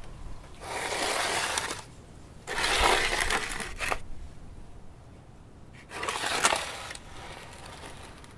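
Bowls of loose orchid potting media scraped across and lifted off a concrete patio, then a bowl of pine bark chips set down, the gritty media rattling in the bowls. Three separate bursts of scraping, each about a second or a little more, the middle one loudest.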